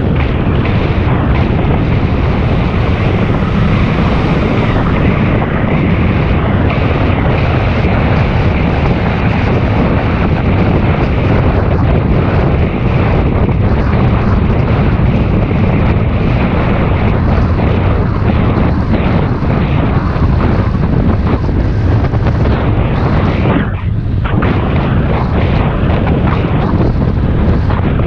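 Loud, steady wind rush buffeting the microphone of a camera on a moving bicycle, heavy in the low end, with a short lull about 24 seconds in.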